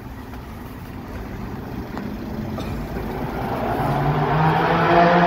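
A motor vehicle approaching on the street, its engine hum growing steadily louder through the second half.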